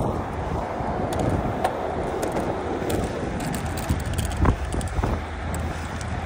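Steady rush of wind and tyre noise from a road bike rolling along asphalt, with a few scattered light clicks and rattles, the loudest a little past the middle.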